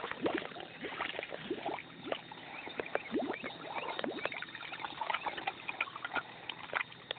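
A pig's snout and mouth working in something wet, a continuous run of quick, irregular wet smacks and slurps.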